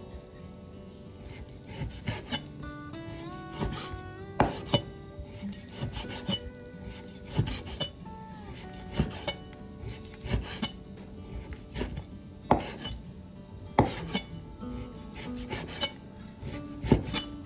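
Repeated scraping and rubbing of a kitchen utensil, with sharp knocks every second or so, over soft plucked-string background music.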